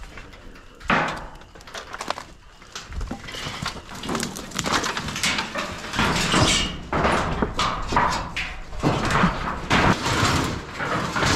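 Corrugated tin roofing sheets being lifted and dragged over a junk pile, scraping and rattling with metallic clanks, busier and louder from about four seconds in.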